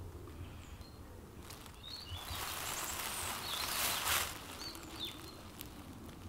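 Outdoor ambience with small birds chirping briefly a few times, and a rushing noise that swells from about two seconds in, peaks near four seconds and then fades.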